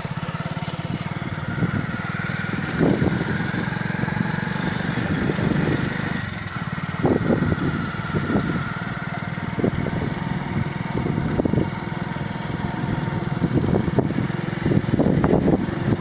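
A motorcycle engine running steadily as it is ridden along a rough track. A few short, louder bumps come through over the engine.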